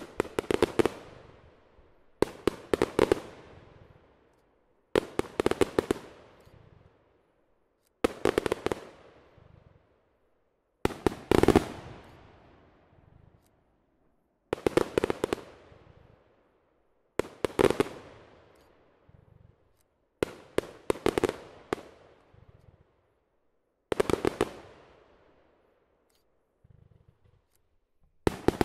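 Aerial fireworks going off in a steady sequence: about ten bursts, roughly every three seconds. Each burst is a quick cluster of sharp bangs followed by a fading echo.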